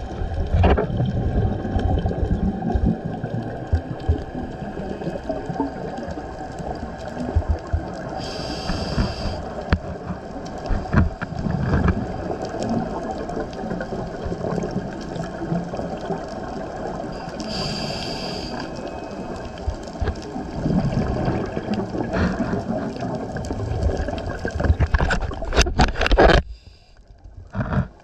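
Underwater scuba breathing: a diver's regulator hissing on two inhalations about nine seconds apart, with the low bubbling of exhaled air in between. The bubbling drops away briefly near the end.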